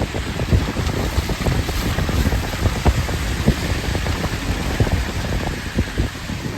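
Vehicle driving, a steady low rumble with hiss and wind buffeting the microphone in short crackly gusts.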